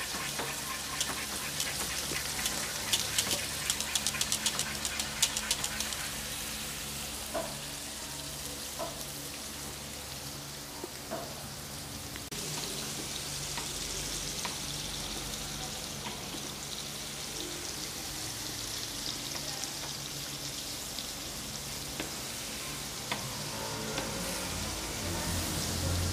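Thick slabs of meat frying in hot oil in a pan on a gas range: a steady sizzle, with a dense run of crackling spatter pops a few seconds in and scattered pops after.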